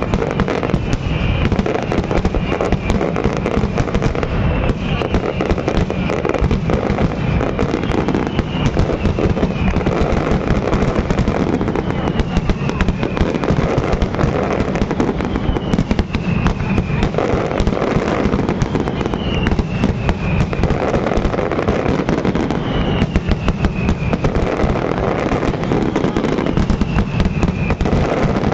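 Fireworks display at full intensity: a dense, continuous run of rapid bangs and crackling from shell bursts, with short falling whistles recurring every few seconds.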